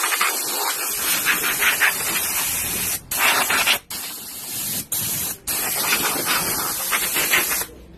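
Compressed air from a workshop compressor's blow gun hissing loudly in long blasts, with four brief breaks, blowing dust off the workbench; it stops shortly before the end.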